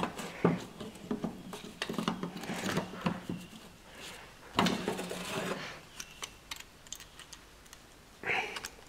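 Pliers and a steel return spring clicking, clinking and scraping against a rear drum brake shoe as the spring is worked onto the shoe, with scattered short clicks and a longer scrape about halfway through.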